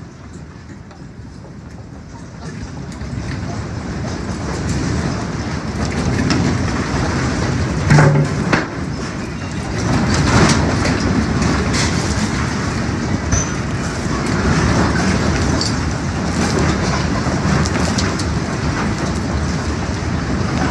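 Earthquake shaking: a deep rumble that builds over the first few seconds and then holds loud, with objects rattling and knocking throughout and a sharper knock about eight seconds in.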